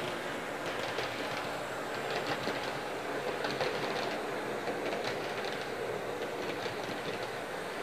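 HO scale model train running around the layout track: a steady whir from the model locomotive with irregular light clicks from the wheels crossing the track joints.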